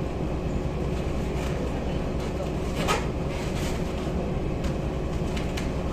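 Steady low rumble of the Royal Wing cruise ship's engines heard from on board, with a faint steady hum and a short knock about three seconds in.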